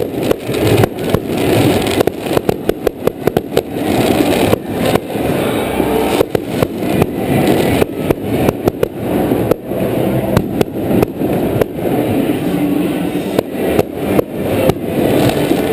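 Aerial firework shells bursting in quick succession: a dense run of sharp bangs, several a second, over a continuous haze of noise.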